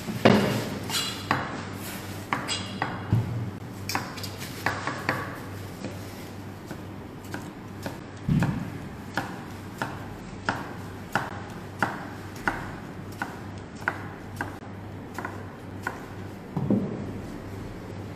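A kitchen knife cutting vegetables on a cutting board: sharp knocks at about two a second, with a few heavier thuds.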